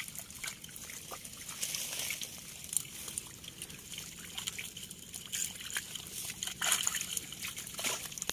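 Water splashing and trickling, with many quick wet slaps and patters, as hands work through a heap of small fish in a wet fine-mesh net.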